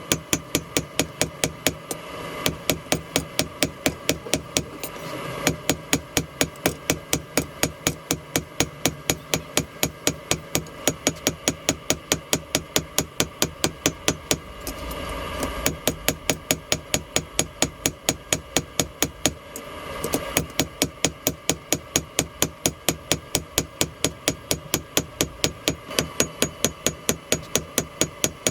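Blacksmith's hammer striking a hot railroad spike on an anvil in fast, even blows, about four a second, in long runs broken by a few short pauses.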